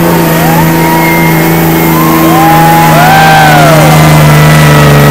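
Cummins diesel engine of a Dodge Ram pickup held at full throttle under load while pulling a sled, a loud, steady drone at an unchanging pitch. Spectators whoop over it.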